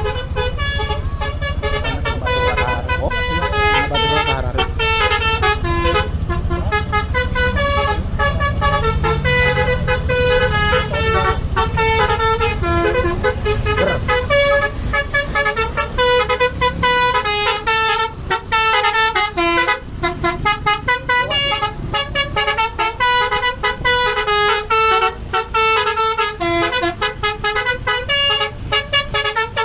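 Bus's multi-trumpet 'telolet basuri' musical horn playing fast tunes of short notes, one after another. The bus engine runs underneath, loudest in the first half, and rises in pitch briefly around a quarter of the way in.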